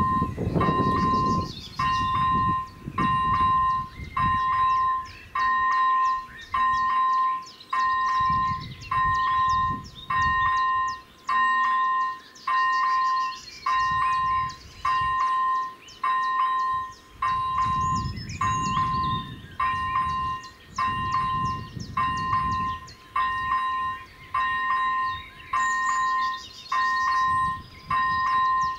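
Electronic warning bell of a Czech AŽD 97 level-crossing signal ringing while the red lights flash, one clear single-pitched ding about once a second. Birds chirp faintly above it.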